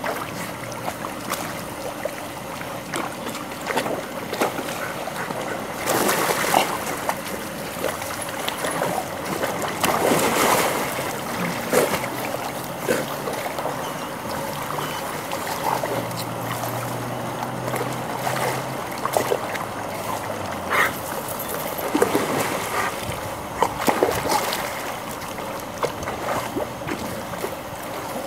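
Water splashing and sloshing as German Shepherds swim and paddle through a swimming pool, with louder splashes every few seconds as they lunge and scramble.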